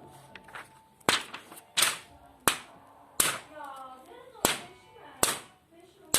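Sharp paper snaps made by striking a sheet of paper with a pen, a home-made imitation of gunshots. About six separate cracks, a little under a second apart.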